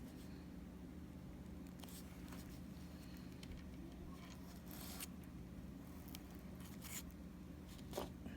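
Microblading hand blade scratching short hair strokes into a banana peel: faint, crisp scrapes every second or two, the cutting noise the artist calls accurate to skin.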